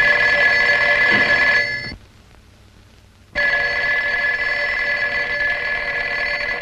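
Telephone bell ringing twice in long, steady rings: the first stops about two seconds in, and the second starts about three and a half seconds in.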